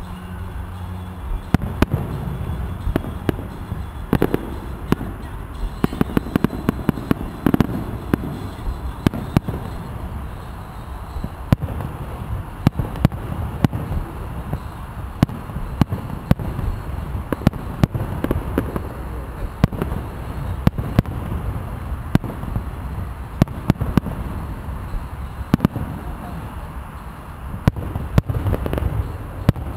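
Aerial firework shells bursting in quick, irregular succession: dozens of sharp bangs over a steady low rumble.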